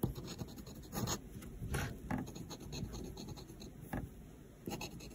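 Fine steel nib of an inexpensive Hero fountain pen scratching faintly across paper as words are written, in a run of short strokes.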